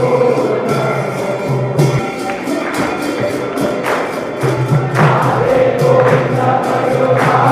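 Devotional music: voices singing a held, swaying melody over a quick, steady beat of jingling percussion.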